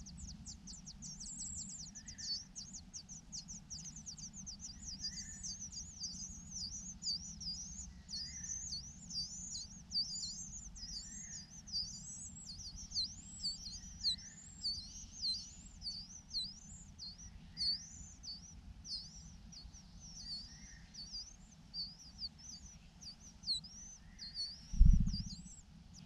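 Large niltava nestlings begging at the nest: a steady stream of rapid, thin, high chirps, each dipping and rising, about two or three a second. A soft lower note repeats about every three seconds, and a low thump comes near the end.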